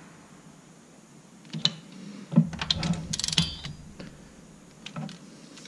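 Ratcheting wrench clicking as it snugs down engine cylinder head bolts. A few clicks come about a second and a half in, then a quick run of clicks from about two and a half to three and a half seconds, and one more near five seconds.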